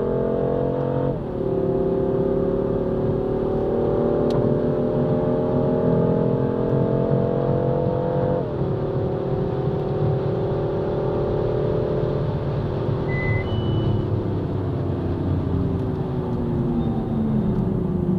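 BMW car engine heard from inside the cabin under hard acceleration: its pitch climbs, drops sharply at an upshift about a second in, climbs again for several seconds, and drops at a second upshift. Over the last few seconds the engine note falls steadily as the car brakes.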